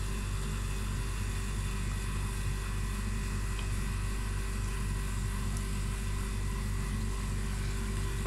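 Steady low hum with a faint hiss, with no other events.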